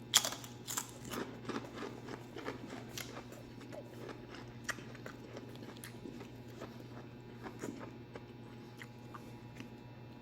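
Close-up chewing of crunchy potato chips: a run of sharp crackles, loudest in the first second, then fainter and sparser.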